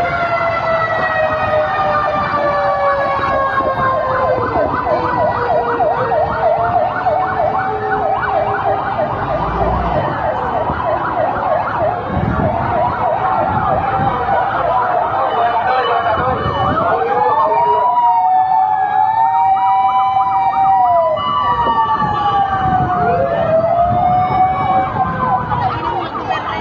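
Several fire truck sirens sounding at once and overlapping: one long tone slides slowly downward over the first few seconds while others give rapid yelping warbles, then slower rising-and-falling wails through the second half.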